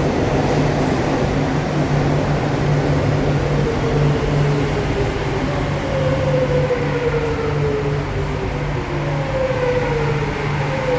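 Madrid Metro series 8000 (second batch) train running, a steady low electrical hum under its running noise, with a motor whine that falls in pitch several times.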